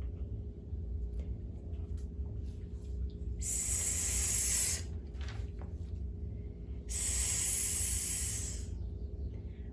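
A voice hissing a long 'sss' twice, each lasting about a second and a half with a pause between: the sound of the letter S, voiced as a phonics sound.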